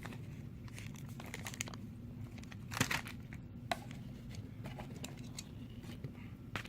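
Packaging being handled: intermittent crinkling and rustling with a few light clicks, loudest about three seconds in.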